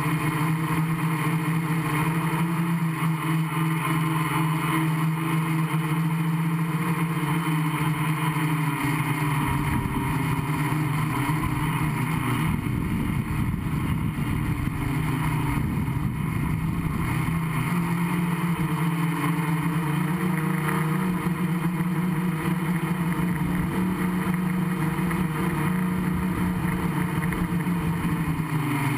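Gaui 500X quadcopter's electric motors and propellers humming steadily, heard from the camera mounted on the quad. Between about 9 and 18 seconds in, the pitch shifts and a low rumble comes in under the hum, then the steady tone settles back.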